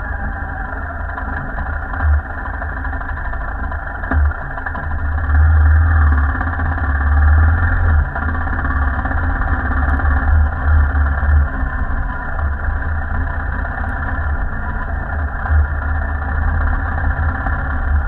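Royal Enfield Himalayan's single-cylinder engine running steadily as the motorcycle rides over a dirt track, under a heavy low rumble that swells louder for a few seconds midway.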